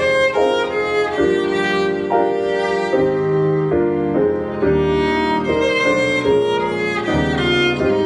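Instrumental classical music: a sustained melody line over chords, with the notes changing about every half second to a second.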